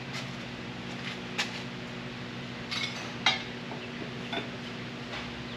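A few light, sharp metallic clinks from tools and metal being handled, the loudest a bit past the middle, over a steady low hum.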